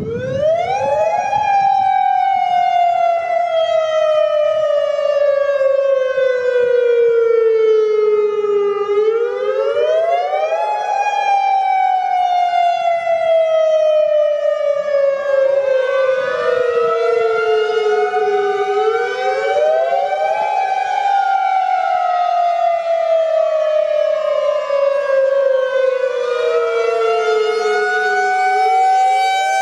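Federal Signal electronic outdoor warning sirens (Modulator 5020 and 2001-SRN) sounding a wail: the pitch jumps up quickly, then slides slowly down, repeating about every ten seconds. From about halfway through, a second siren's wail overlaps, out of step with the first.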